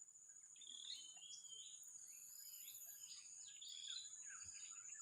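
Faint forest ambience: many short bird chirps and whistles over a steady high-pitched insect drone.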